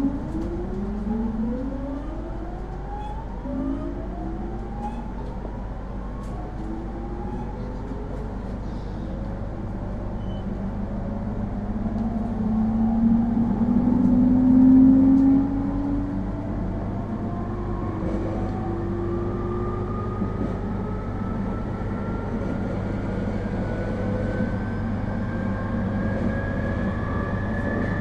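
IGR7000 series electric train accelerating, heard from inside the car: the VVVF inverter and traction motors whine in several tones that climb in pitch over the first few seconds, then settle into one tone rising slowly higher as the train gathers speed, over steady rail and running noise.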